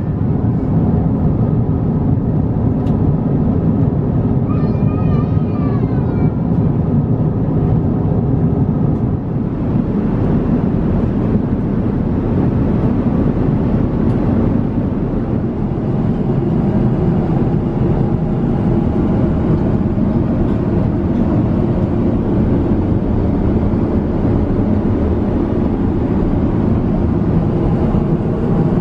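Steady roar of cabin noise inside an Airbus A350-900 airliner in flight, the low rush of airflow and engines holding at one level. A short wavering high tone sounds briefly about five seconds in.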